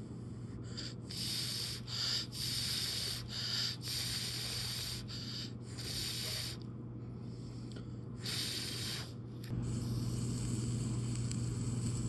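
A series of short hissing rubbing or scraping strokes, about eight of them with gaps between, over a steady low hum that gets louder near the end.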